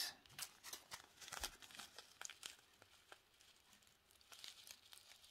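Small plastic zip-lock bag of diamond painting drills crinkling faintly as it is handled in the fingers, in scattered light crackles and clicks.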